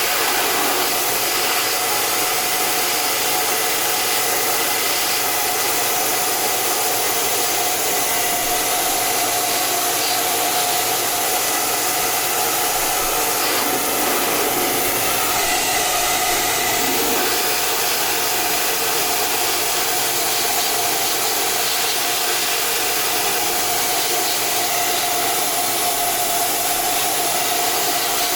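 Hot-air tool blowing steadily, its fan running with a constant whooshing hiss and a faint steady whine, as it heats a monitor panel's driver board.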